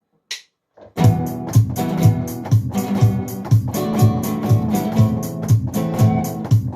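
Band playing a song intro on guitars and bass guitar with a steady beat, starting about a second in after a short click.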